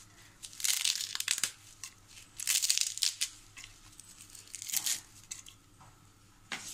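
Fresh Malabar nut (basak) leaves torn by hand: crisp rustling and tearing in three or four short bursts.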